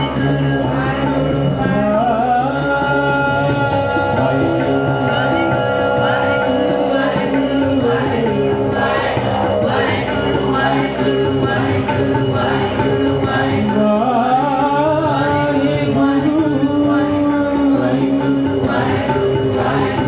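Sikh kirtan: a group singing a devotional chant together over steady instrumental accompaniment.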